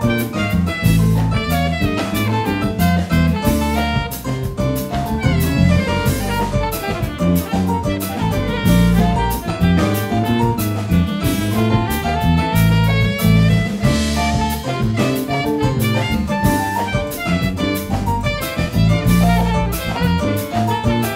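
Instrumental music with a steady drum beat and a strong bass line, without vocals.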